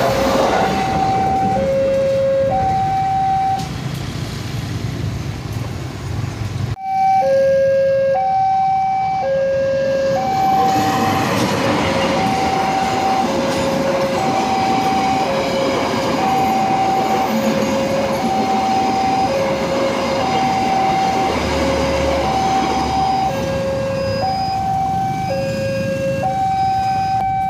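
Level crossing warning alarm sounding a two-tone signal, alternating between a higher and a lower tone about once a second, over the rumble of passenger trains running past on the rails. The sound breaks off abruptly about seven seconds in, then the alarm resumes and the train rumble builds again.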